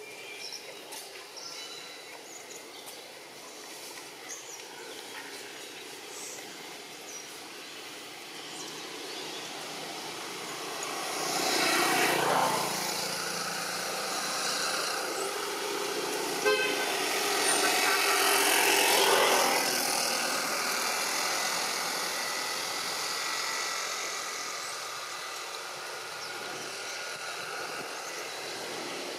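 Motor vehicle passing: its engine noise swells to a peak about twelve seconds in, dips, swells again a few seconds later, then fades away.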